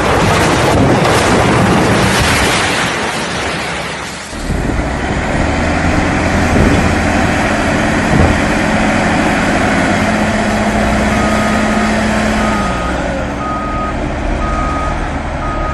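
A heavy vehicle's engine running steadily, with a reversing alarm beeping about once a second over the last few seconds. Before that, a loud rushing noise cuts off about four seconds in.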